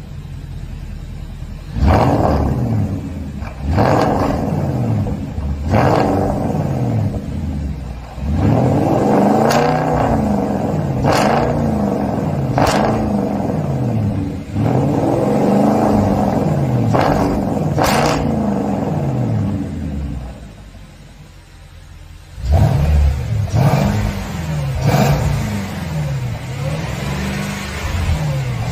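Porsche 958 Cayenne S engine revved through a valved cat-back exhaust with dual quad tips, exhaust valves open: three sharp throttle blips about two seconds apart, then runs of quick repeated revs rising and falling. The revving drops back to idle for about two seconds late on, then picks up again.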